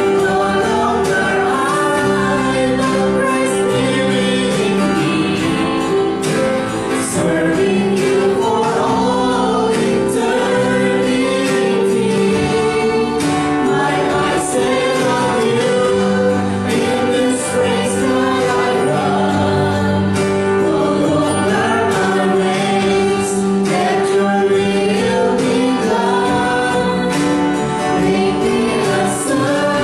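Church worship team singing a praise song together, men's and women's voices over a live band with acoustic guitar, with steady held chords underneath.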